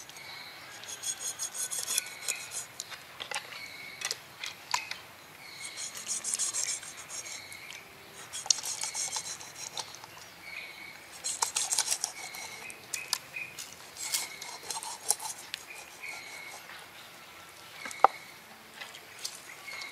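A large knife blade scraping along the skin of a big redfish on a wooden cutting board, in repeated rasping strokes with small clicks. Near the end comes one sharp knock as the knife is laid down on the board.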